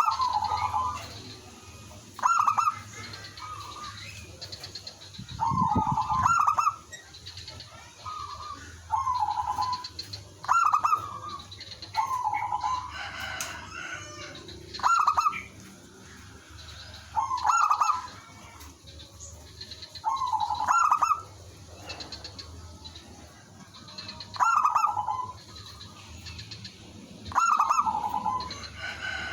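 Zebra doves cooing: short, rapid, stuttering phrases repeated every two to three seconds, with more than one bird calling and answering.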